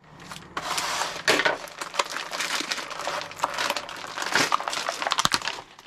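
A plastic bag of bread rolls being cut open with scissors, then crinkled and pulled open by hand: a dense, continuous rustling with many sharp crackles.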